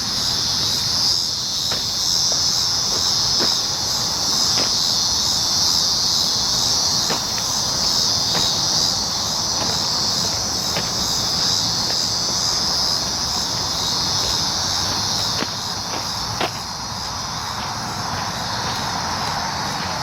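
A chorus of cicadas buzzing loudly and continuously in a high, slightly pulsing drone. A few sharp clicks sound now and then, the loudest about 16 seconds in, after which the chorus is a little quieter.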